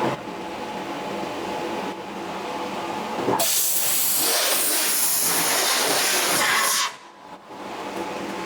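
Laser cutting machine humming steadily, then a loud hiss starts about three and a half seconds in and cuts off sharply about three and a half seconds later: the assist gas blowing as the laser cuts a hole in a steel muffler body.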